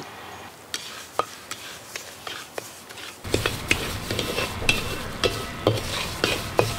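Wooden spatula stirring and scraping semolina as it roasts in ghee in a wide brass pan: soft scrapes and clicks that grow louder and busier about three seconds in.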